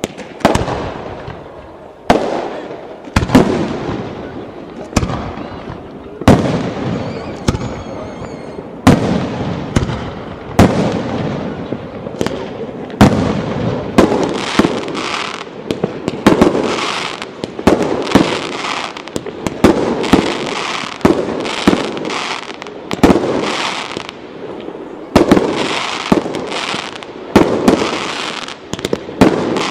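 Fireworks display: aerial shells launching and bursting in quick succession, sharp bangs about once or twice a second, each trailing off in an echoing rumble. The bangs come thicker in the second half, with a hissing crackle between them.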